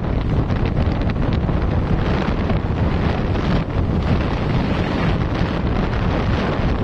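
Heavy, steady wind rushing over the microphone of a rider on the move.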